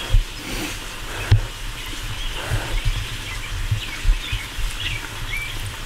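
Outdoor ambience: small birds chirping faintly several times in the second half, over a low uneven rumble with soft thumps, and one sharp click about a second and a half in.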